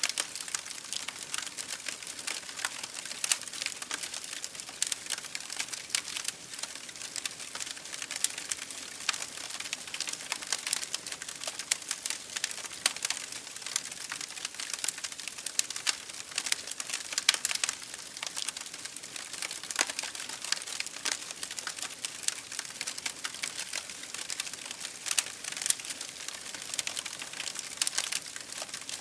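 Wood fire burning in an open fireplace, crackling with a dense run of small pops and sharper snaps over a steady hiss.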